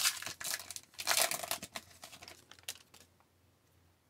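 A hockey card pack wrapper being torn open and crinkled: a dense run of crackling rustles lasting about three seconds.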